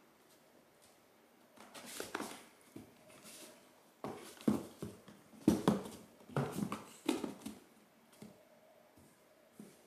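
Two cats scuffling on a cardboard box: paws swatting and scrabbling against the cardboard, giving a soft rustle about two seconds in, then a cluster of uneven thumps and scrapes, loudest around the middle.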